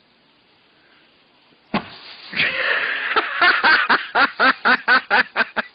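A short knock, then a person laughing hard in a fast run of ha-ha bursts, about four a second.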